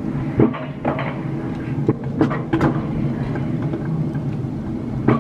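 Alpine coaster sled rolling along its metal rail track: a steady low rumble with sharp clacks every half second or so.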